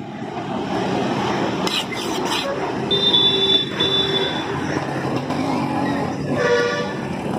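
Street traffic: motorbike and scooter engines running by in a steady din, with a vehicle horn sounding briefly near the end. A few knocks of a butcher's knife on the wooden chopping block come about two seconds in.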